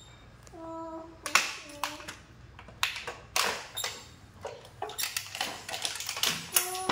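A young child's voice gives a few short sung notes, then irregular sharp crackles and clicks follow as a thin clear plastic bottle is crumpled and handled. The crackles come thickest near the end.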